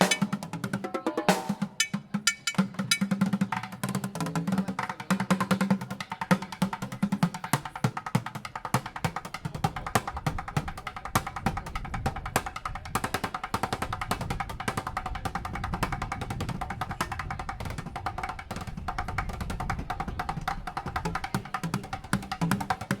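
Drum and percussion music: many quick drum hits and knocks in a fast, busy rhythm, with a steady sustained tone underneath.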